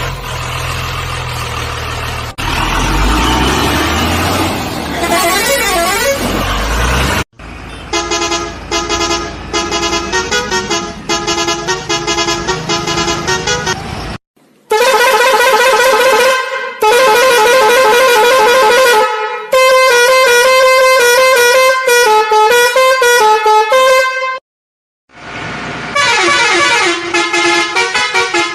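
Vehicle sounds. About the first 7 seconds are a noisy, engine-like rumble. After a sudden break, loud horn-like tones change pitch in quick short pulses like a tune, with two brief gaps.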